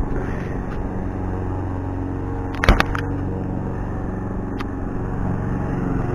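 A steady low mechanical hum, with a sharp knock about two and a half seconds in and a faint click near the end.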